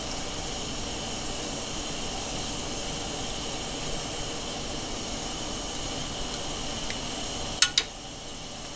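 Soy milk cream sauce simmering in a frying pan over a gas burner, stirred with chopsticks: a steady hiss. Two sharp clicks come close together near the end.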